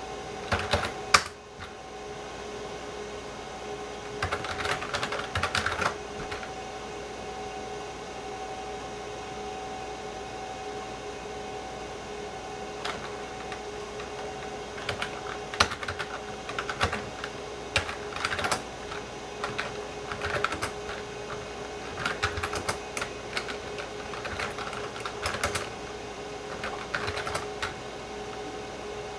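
Typing on a computer keyboard in short irregular bursts of key clicks, with pauses between them, over a steady hum with two held tones.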